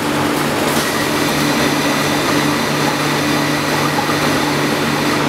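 Steady rushing air with a low hum from a 1996 Jensen multistage ultrasonic washing system's hot-air drying tunnel, its blower running while the machine cycles.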